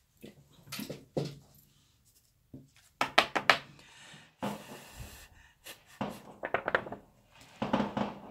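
Fireworks going off outside: an irregular series of bangs and crackles, with a quick run of cracks about three seconds in and a short hissing burst a little later.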